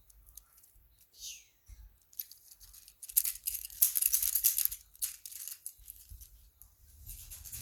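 Fidget toys handled for ASMR, making dry, scratchy rustling that is loudest for about two seconds starting three seconds in.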